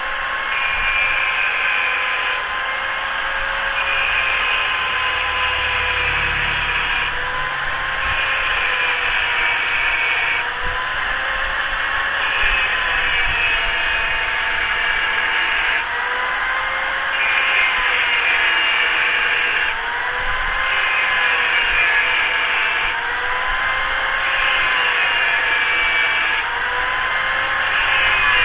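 Electric angle grinder running continuously while cutting metal. Its whine dips slightly and recovers every few seconds as the load on the disc changes.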